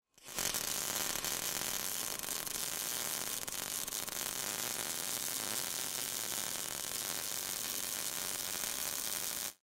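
MIG welding arc, a steady hiss with fine crackle, starting just after the beginning and cutting off abruptly near the end.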